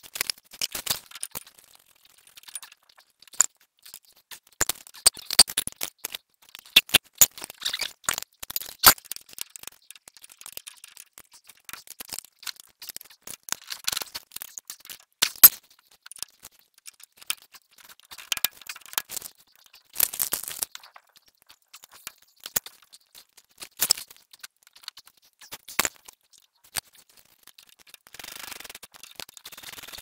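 Irregular metallic clicks, clinks and knocks of hand tools and bolts as a brake caliper mount is bolted back onto a Ford F-150's front wheel hub.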